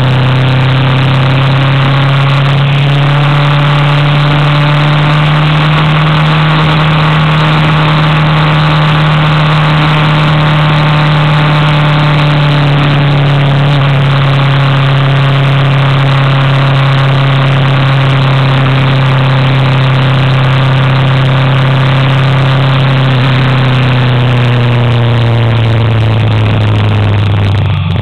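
Vehicle engine running steadily under load while climbing a mountain road, at an almost constant pitch that dips slightly near the end.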